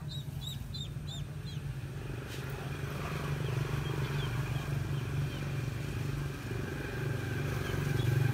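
A steady low motor drone, growing louder in the second half, with a duckling peeping faintly a few times over it.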